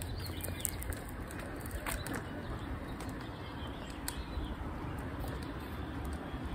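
Faint outdoor street ambience: a low rumble of wind on the microphone, with distant birds calling.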